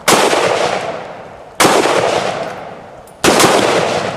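Three gunshots about a second and a half apart, each followed by a long echoing decay.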